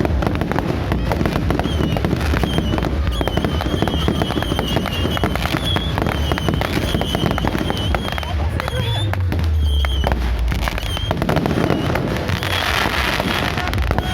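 Fireworks going off in a continuous rapid crackle of bursts, with a heavier low boom about nine to ten seconds in.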